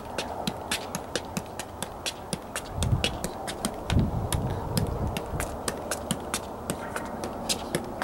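A soccer ball being juggled on foot and knee: a quick, regular series of light taps, one per touch. A low rumble rises and falls around the middle.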